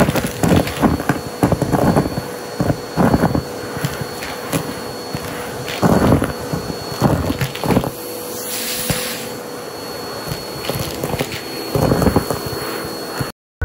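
Upright vacuum cleaner running with a steady whine while its hose, fitted with a red plastic cup as a nozzle, sucks up deflated balloons, styrofoam chunks and coins from carpet. Repeated sharp crackling and rattling bursts come as the pieces are pulled up the hose. The sound cuts off suddenly near the end.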